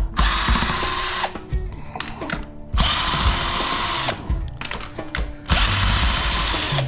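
Power drill run in three bursts of a little over a second each, backing out fasteners.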